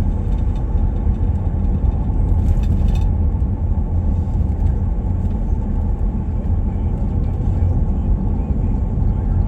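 Steady rumble of a car driving slowly on a snow- and ice-covered road, heard from inside the cabin: engine and tyre noise.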